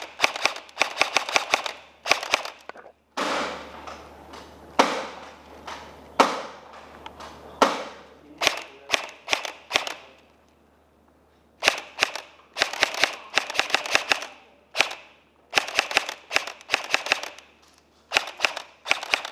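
M4-style airsoft rifle firing, mostly in short rapid bursts of snapping shots, with a few single shots in between and a pause of about a second and a half around the middle.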